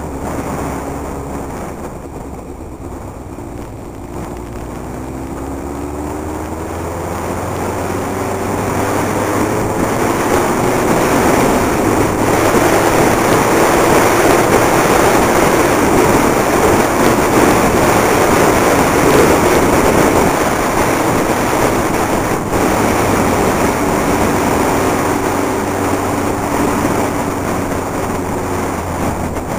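Motorcycle engine pulling away, its tone rising as it accelerates over the first several seconds. Wind and road noise then build to a loud steady rush at speed, easing near the end as a steady engine tone comes back.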